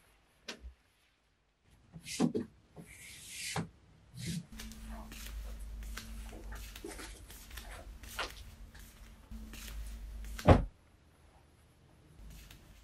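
Clothes being hung in a closet: hangers clicking and scraping on a metal pipe clothes rail, with rustling and scattered knocks over a faint steady hum through the middle. One loud thump comes near the end.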